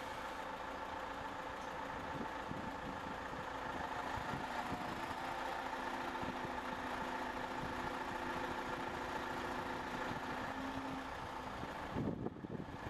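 Steady engine and road-traffic noise from heavy vehicles running. A few sharper knocks come in near the end.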